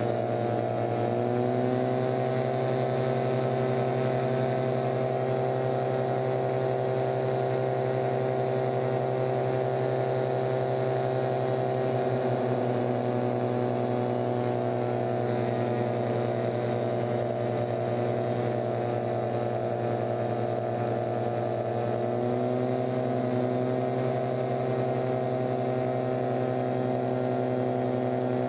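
Paratrike engine and caged pusher propeller running steadily in flight. The pitch steps up about two seconds in, shifts around halfway, and rises again near the end as the throttle changes.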